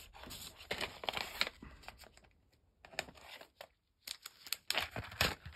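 Clear plastic zip-lock bag crinkling as it is handled and opened, with light clicks of small resin model-kit parts tipped out onto a cutting mat. The crackling pauses briefly in the middle, then starts again.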